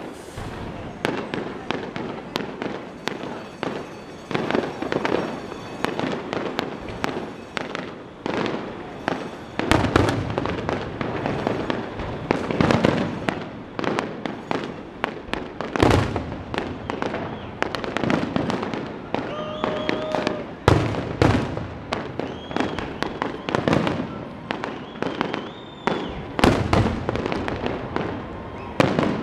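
Aerial fireworks shells bursting in quick succession: a constant crackle of booms and pops, with heavier booms every few seconds.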